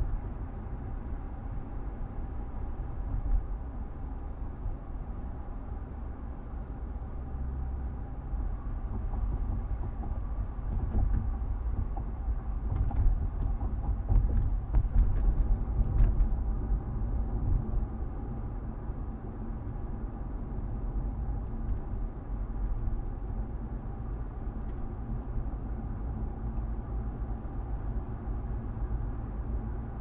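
Inside a car's cabin driving slowly, about 20 to 30 mph: a steady low rumble of the engine and tyres on the road. It grows louder and more uneven for a few seconds near the middle.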